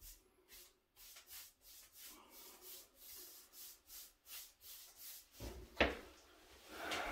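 Paintbrush strokes spreading urethane along wooden door trim, a run of short swishes about three a second, then a sharp knock as the brush goes back to the paint can, followed by a softer scraping.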